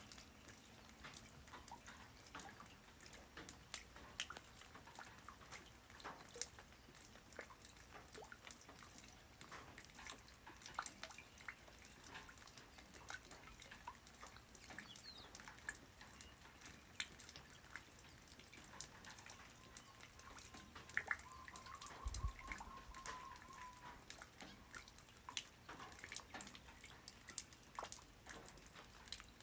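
Light rain falling on the ground: scattered, irregular drops ticking and dripping over a soft hiss. About two-thirds through, a faint drawn-out tone and a single low thud are heard.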